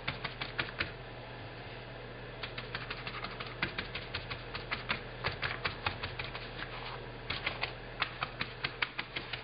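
Paintbrush dabbing paint onto wet fabric laid on a metal baking tray: quick, irregular taps, a few a second, with a short pause about a second in and another lull about two-thirds of the way through.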